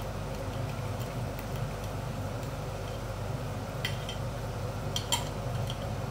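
Water at a rolling boil in a wide pan holding a wire steaming rack, bubbling steadily with a low rumble. A few light clicks come about four and five seconds in.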